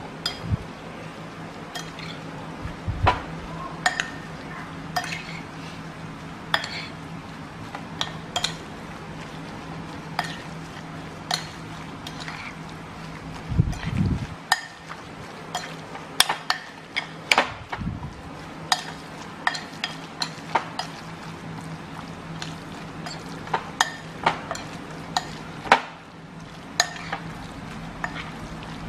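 A metal spoon stirring and mashing seasoned minced pork in a bowl, clinking against the bowl's side in irregular taps about once a second, more closely spaced partway through.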